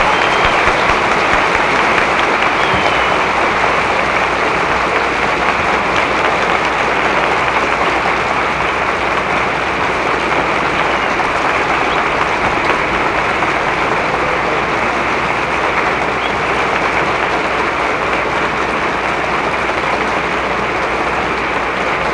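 Audience applauding steadily and densely, with a low steady hum beneath.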